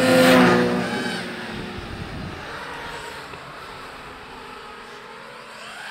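A passing motor: a loud pitched note that drops in pitch during the first second and fades to a steady lower hum, with a rising whine near the end. It comes either from the snowmobiles passing at speed or from the FPV cinelifter drone that is chasing them.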